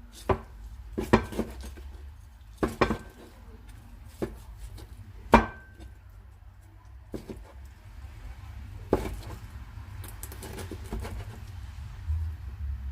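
Knife slicing deep-fried pork on a cutting board: irregular knocks of the blade striking the board, roughly one every second, one of them with a brief ring.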